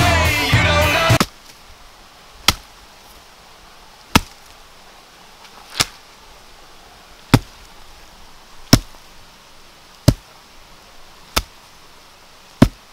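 Music cuts off abruptly about a second in, followed by eight single chopping blows, sharp strikes spaced about one and a half seconds apart.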